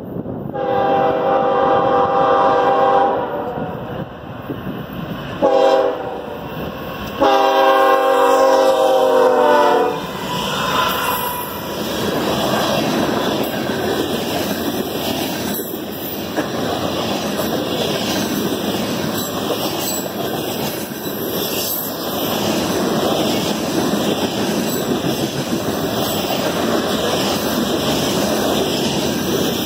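Freight train's diesel locomotive horn sounding three blasts, long, short, long, as the train approaches. After that the train passes close by, a long string of tank cars rolling past with a steady rumble and a regular clickety-clack of wheels over the rail joints.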